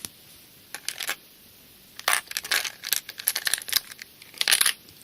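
Small hard items clicking and clinking together as they are handled, a few clicks about a second in and then a quick run of them through the middle to near the end.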